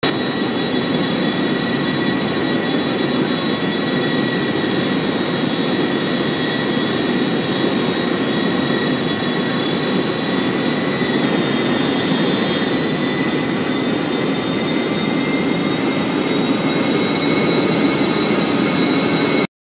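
Jet airliner cabin noise from a window seat over the wing: a steady rush of engine and airflow noise with a high engine whine on top. The whine steps slightly higher about eleven seconds in, and the sound cuts off abruptly near the end.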